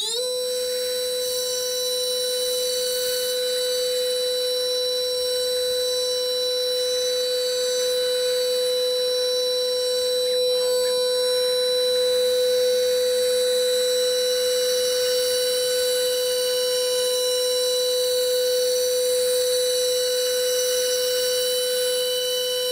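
High-speed CNC machine spindle whining after spinning up. It reaches its pitch right at the start, then holds one steady high tone with overtones.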